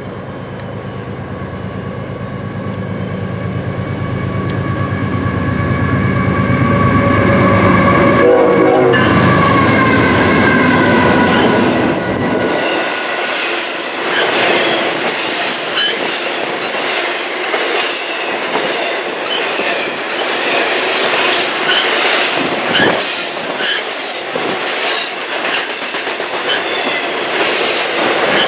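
A diesel freight locomotive approaches and passes, its horn sounding a long steady chord over a deep engine rumble that is loudest about eight seconds in. The horn fades as the locomotive goes by. Then the intermodal cars roll past with steady wheel clatter and scattered high wheel squeals.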